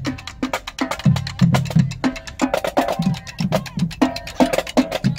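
High school drumline playing a marching cadence: a quick, even run of snare drum strokes, about five or six a second, with lower bass drum notes beneath.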